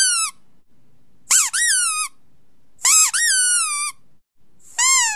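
Squeaky dog toy squeezed and released four times, about one and a half seconds apart; each squeeze gives a high squeak that rises and then falls, in two quick parts.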